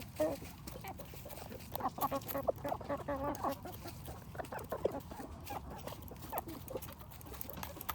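Barred Rock chickens clucking in a cluster of short calls a couple of seconds in, with a few more scattered calls later, over light scattered taps and rustles.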